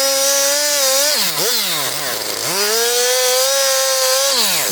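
Chainsaw running at high revs while cutting firewood, held high for about a second, dropping back briefly, then held high again for about two seconds before falling off near the end.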